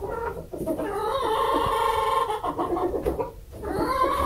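Domestic hens clucking, with a drawn-out, warbling call lasting about two seconds from about a second in.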